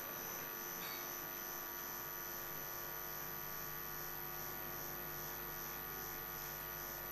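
Steady, faint electrical hum with no speech: the background hum of the hall's sound feed between speakers.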